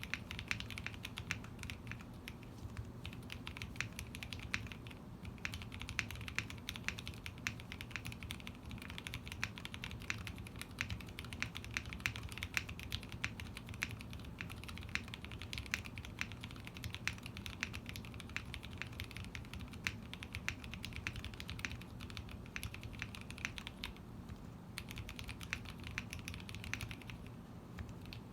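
Fast, continuous typing on a custom mechanical keyboard: lubed Gateron CAP milky switches on an aluminium plate in an aluminium Tada68 case, with foam between PCB and plate and lubed Cherry screw-in stabilizers. There are short pauses about five seconds in and again near the end.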